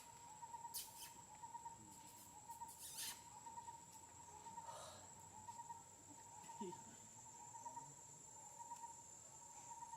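Faint, unbroken insect chirring: a pulsing mid-pitched trill with a thin high steady whine above it, and a few soft clicks.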